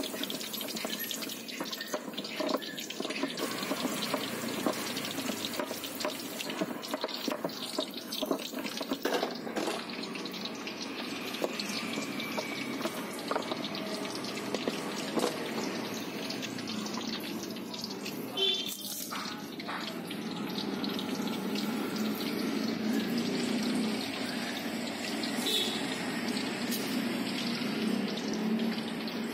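A stone pestle grinds and stirs wet peanut sauce on a ceramic plate: continuous wet scraping and sloshing with many small clicks. Near the end a knife slices lontong rice cake over the plate.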